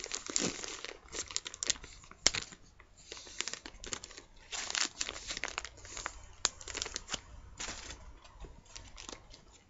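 A plastic bag crinkling and rustling in irregular spurts as things are handled in and around it, with a few sharp crackles.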